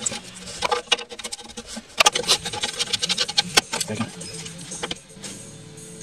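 Irregular metallic clicks, knocks and scraping of hands and tools working at a radiator hose and its clamp in a small-block Chevy engine bay; loudest about two seconds in, quieter in the last second.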